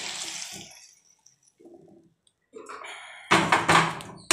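Liquid poured from a tilted steel pot, trailing off about a second in. From about three seconds in, a few loud clatters of steel cookware being gripped and moved with pot tongs.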